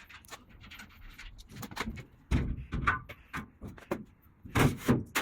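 Front cover of a BBQ smoke purifier being unlatched and opened, a series of clunks and rattles, with louder knocks about two and a half seconds in and again near the end.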